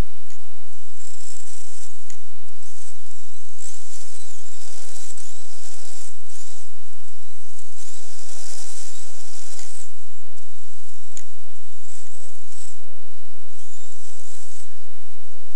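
Kyosho Blizzard RC snowcat's electric motor and drivetrain whining in repeated high-pitched bursts, the pitch rising and falling as the throttle is worked.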